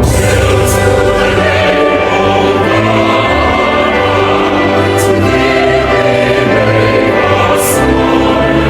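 Choir singing a national anthem with instrumental backing.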